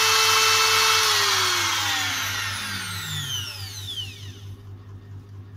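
Bitec SGM 906 V-OS electric die grinder whining at top speed. About a second in, the whine starts falling steadily in pitch and fading as the motor winds down, dying away after about three more seconds.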